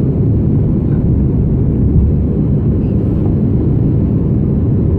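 Steady low rumble and airflow noise inside the passenger cabin of an Airbus A330-200 airliner, its GE CF6 turbofan engines running.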